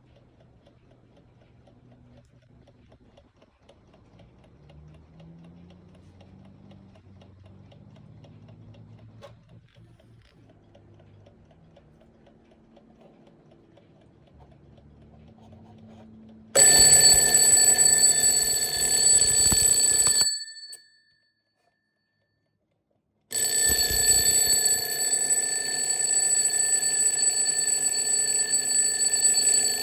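Mechanical twin-bell alarm clock going off: its hammer rattles rapidly against the two bells in a loud, continuous ring with several steady high tones. The ringing starts about sixteen seconds in, breaks off for a few seconds around twenty seconds in, then goes on again. Before it there is only faint low sound.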